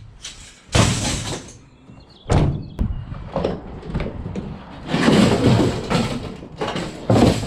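A vehicle door being opened and shut, with several loud clunks and scraping bursts.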